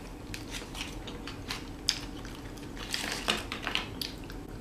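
Close-miked eating sounds: a run of irregular small clicks and crackles from chewing and handling food, with the sharpest about two seconds in and a cluster around three seconds in.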